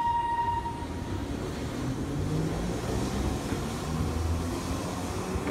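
Streetcar running along the rails as it moves away from the stop: a low rumble and hum from its motor and wheels. A steady high tone stops about a second in.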